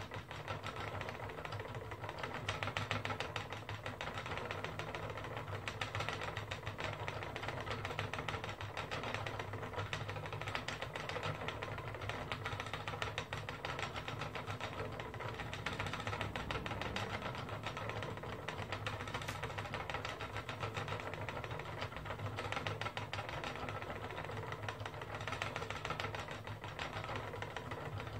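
Wooden spinning wheel running steadily under the treadle, its flyer and bobbin whirring with a fast, even clatter as yarn is spun.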